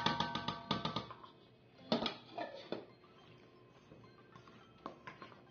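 A plastic bowl knocking and scraping against a stainless steel mixing bowl as flour is tipped in, the steel bowl ringing, in a quick cluster of knocks in the first second and another about two seconds in. After that it goes quiet under faint background music.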